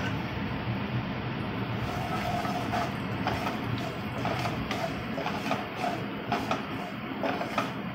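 Mustard seeds and dried red chillies sizzling in hot oil in a nonstick kadhai, a tadka being tempered. From about two seconds in, a wooden spatula scrapes and stirs across the pan, making a run of short clicks and scrapes.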